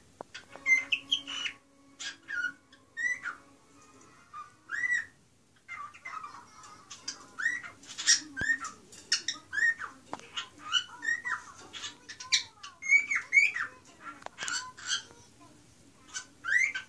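Cockatiel singing: a run of short chirped and whistled notes, many rising or arching in pitch, with a brief lull about four seconds in.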